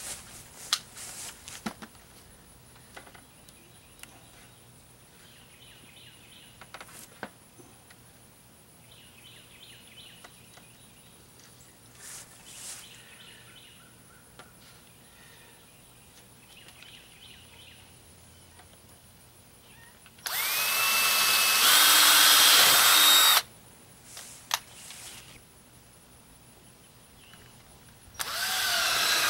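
Cordless drill boring pilot holes through a stainless steel hinge into a plywood deck board: two runs of about three seconds each, one about two-thirds of the way in and one near the end, the motor whine rising as it spins up.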